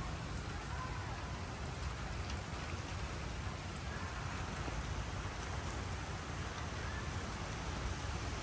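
Rain falling steadily as a thunderstorm arrives, an even hiss of rain on surfaces.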